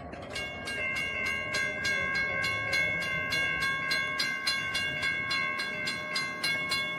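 Railroad grade-crossing warning bell ringing with rapid, even strikes while the crossing gates rise after the train has cleared.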